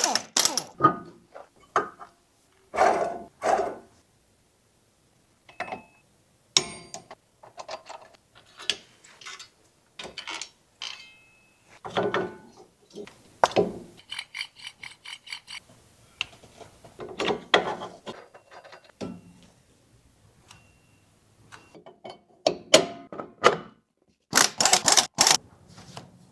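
Irregular knocks, clunks and clicks of handled metal parts, with a run of fast, even ticking for about two seconds a little past halfway.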